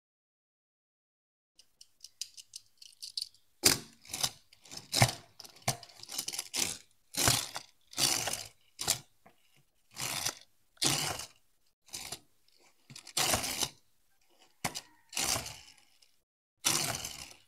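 A die-cast Tomica Nissan Skyline toy race car pushed back and forth across cardboard, its small wheels rolling and scraping in short bursts about once a second. It starts a few seconds in, after a few faint clicks.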